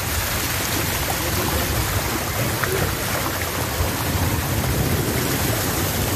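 Steady rush of water flowing down a tube water slide: an even hiss with a low rumble beneath it.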